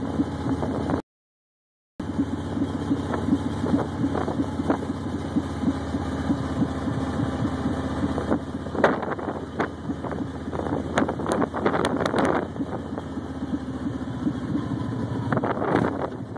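Car engine and road noise heard from inside a moving car: a steady hum. The audio cuts out completely for about a second near the start, and a scattering of sharp clicks comes through in the middle.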